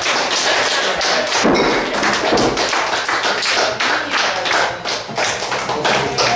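Quick, irregular sharp taps and claps, several a second, with voices calling out between them.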